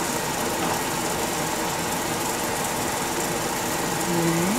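Steady mechanical hum with hiss, unchanging throughout, with no distinct knocks or clatter.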